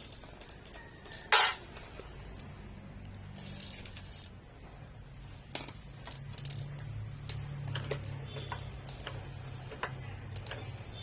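Scattered clicks and clinks of hand tools and small metal parts being handled during work on a small mower engine, with a short hissy scrape about a second in. A low steady hum runs underneath.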